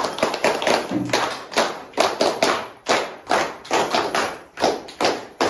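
A small audience clapping, the separate claps coming at a steady pace of about four a second.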